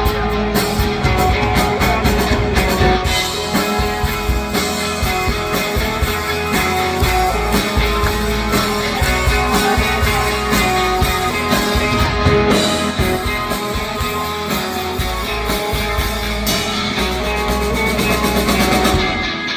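Live rock band playing an instrumental passage with no singing: electric guitars over bass and drum kit. Just before the end the drums and bass drop out and the music gets quieter.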